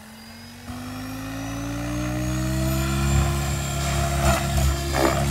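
Electric RC helicopter with an Xnova brushless motor spooling up for takeoff. Under a second in, the motor whine and rotor hum step up, then climb steadily in pitch and loudness as the head comes up to speed and the helicopter lifts off.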